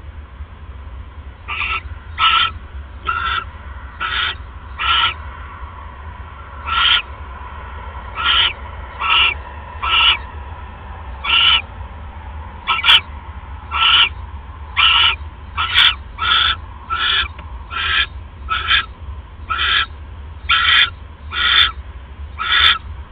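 Barn owl calling: a long series of short, separate calls, each under half a second, about one a second at first and coming closer together in the second half.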